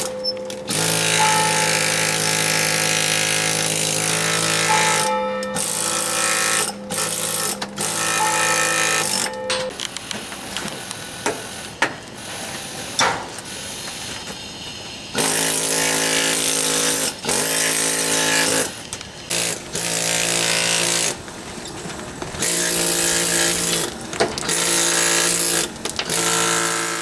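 Pneumatic carving hammer driving a chisel into a stone block, buzzing in runs of several seconds with short pauses between them and a choppier, quieter stretch midway.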